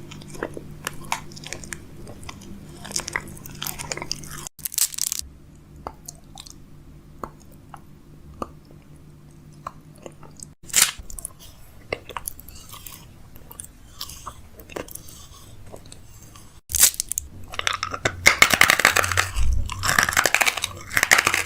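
Close-miked crunching with scattered sharp clicks and taps, in several short clips cut together; a denser, louder run of crackling comes in the last few seconds.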